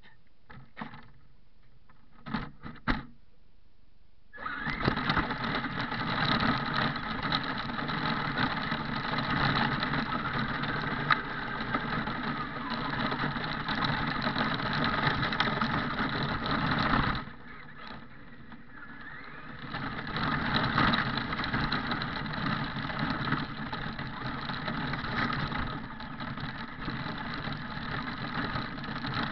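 A few handling knocks, then a radio-controlled car's motor starts up about four seconds in and runs loudly and steadily, heard from a camera mounted on the car. It falls away for about two seconds past the middle, then runs again.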